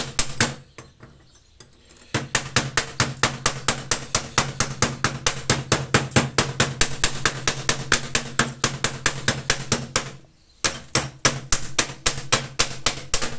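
Chipping hammer knocking slag off a freshly laid fillet weld on steel plate: rapid, even metallic strikes, about four to five a second, with a short pause near the start and again about ten seconds in.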